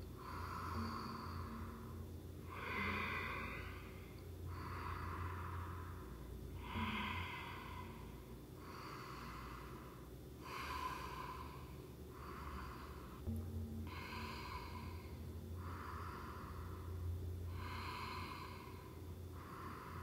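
Deep, audible yoga breaths in a steady rhythm, each inhale and exhale heard separately, about one every two seconds, each breath timed to a circling seated twist.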